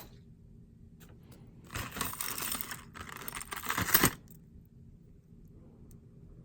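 Loose metal costume jewelry clinking and jangling as it is rummaged through by hand, for about two seconds with a louder clink at the end.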